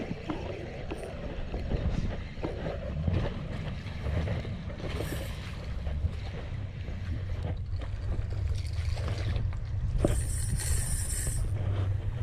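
A motor running with a low steady drone, under wind noise on the microphone. There is a brief hiss about five seconds in and a longer one around ten seconds in.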